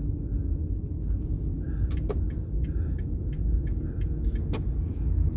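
Car driving, heard from inside the cabin: a steady low road and engine rumble, with scattered small clicks and two sharper clicks about two and four and a half seconds in.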